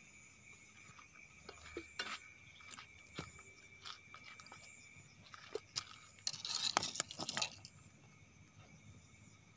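Night insects trilling steadily, with scattered sharp clicks and a brief crackling rustle about six to seven and a half seconds in.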